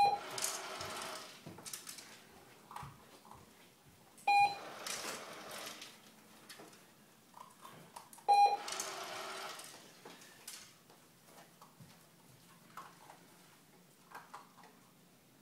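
Remote-controlled treat dispenser for remote reward: three short beeps about four seconds apart, each followed by a second or two of noise as the dispenser runs.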